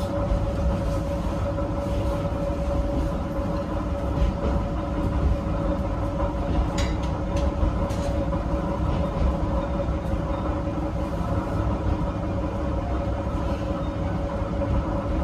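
Diesel railcar running steadily, heard from inside the cabin: a steady engine drone over the low rumble of the wheels on the rails. A few short clicks come about seven and eight seconds in.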